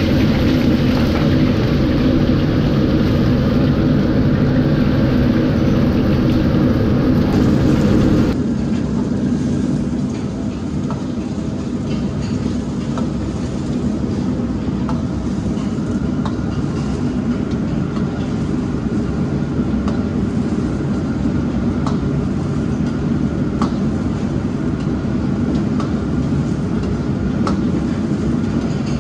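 A steady mechanical drone with a low hum. About eight seconds in it drops and thins abruptly, and after that light clinks come every second or so.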